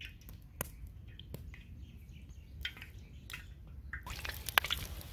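Scattered small pops and drips from a karahi of hot oil, then about four seconds in a sudden rise into sizzling and crackling as spinach pakora batter goes into the oil to deep-fry.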